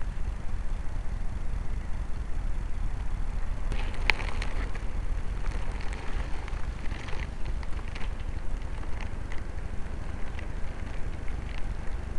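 Wind buffeting the microphone of a mini camera carried aloft by a balloon: a steady low rumble with gusty surges. From about four seconds in there are scattered light crackles and ticks.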